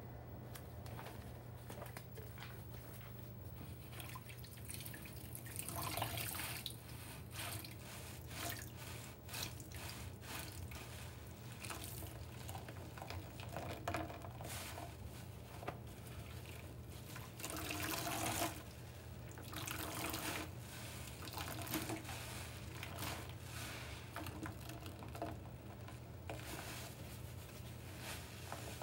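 Soap-soaked kitchen sponges squeezed and wrung by gloved hands in a stainless steel sink of sudsy water: wet squelching, with water splashing and dripping back into the sink in irregular bursts. A steady low hum runs underneath.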